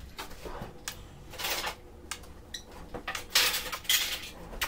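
Small plastic acrylic paint bottles and tubes being handled on a table covered with bubble wrap: a run of light clicks and clatter. Two short rustling bursts come about one and a half seconds in and again a little past three seconds, the later one the loudest.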